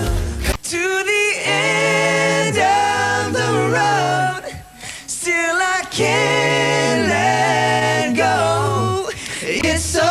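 Male vocal group singing in close harmony, mostly voices over a held low bass line, in two long sung phrases with a brief break about four and a half seconds in.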